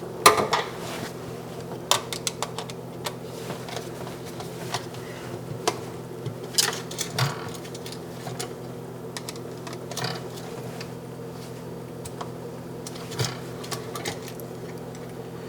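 Scattered small clicks and taps of a screwdriver and wire ends being worked on the terminals of a GFCI receptacle, over a steady low hum.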